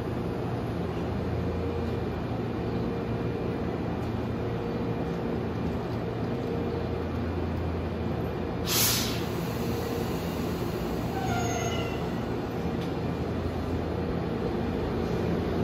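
Tobu 200 series electric limited express train standing at the platform with a steady equipment hum, beginning to pull away near the end. About halfway through comes a short, sharp hiss of air, followed a few seconds later by a few faint short tones.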